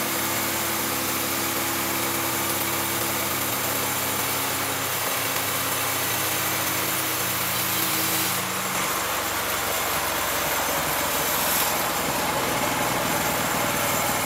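16 HP engine of a horizontal band sawmill running steadily at working speed while the band blade saws through a teak log. About eight and a half seconds in, the steady engine note gives way to a rougher, lower sound.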